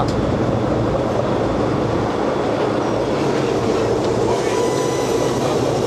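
Fishing vessel's engines and deck machinery running with a steady, dense rumble. Thin high squeals and whines come in about two-thirds of the way through.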